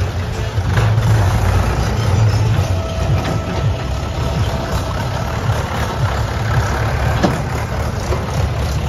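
Mahindra diesel tractors towing trailers pass close by one after another, engines running with a steady low note that is loudest in the first two seconds or so. There are a few brief knocks from the rigs.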